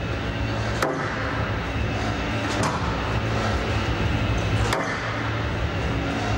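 Squash ball struck in a rally: three sharp cracks about two seconds apart as it hits the racket and the front wall, over a steady background hum.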